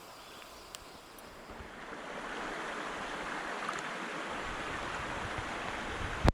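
Mountain stream rushing over rocks: a steady noise of running water that grows louder over a second or so and then holds steady. A single sharp click comes right at the end.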